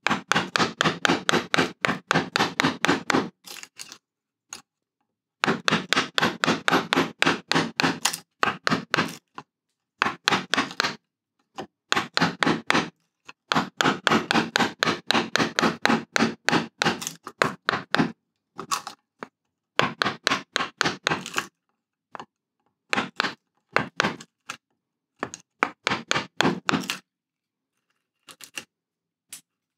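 A bench chisel being driven into beech with rapid, light mallet taps, about six a second, chopping out the waste of a recess. The taps come in runs of a few seconds with short pauses and thin out to a few scattered taps near the end.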